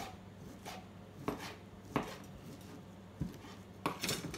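Large kitchen knife chopping cooked turkey meat on a chopping board: about seven sharp knocks of the blade striking the board, irregularly spaced.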